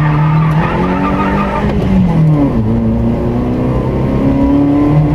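Rally car's engine heard from inside the cabin, accelerating hard out of a corner and down a straight, its pitch dropping at a gear change about two seconds in and again near the end before climbing. Tyres squeal through the corner in the first second or so.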